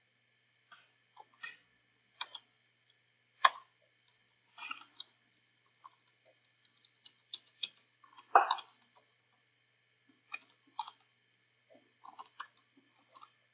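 Irregular clicks of computer keys being typed, with short pauses between runs. Two taps stand out as louder, about three and a half and eight seconds in.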